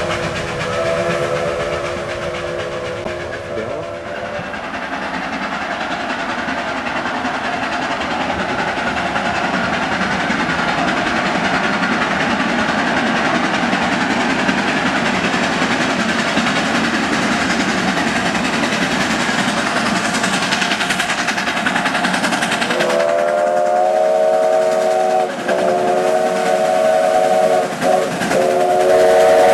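Narrow-gauge steam locomotive 155 climbing a mountain grade, its steam exhaust and running noise a steady rush that grows louder as it approaches. Its chime whistle sounds a chord for a few seconds at the start, then again near the end in a long blast broken twice by short gaps.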